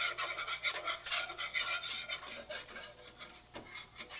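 Metal wire whisk scraping around a nonstick frying pan as it stirs a thick mayonnaise-and-flour paste over heat. The strokes are quick and even, and grow fainter about two seconds in.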